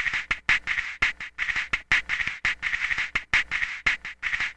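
Comic background music made of a rapid, regular string of quack-like squeaks, about four a second.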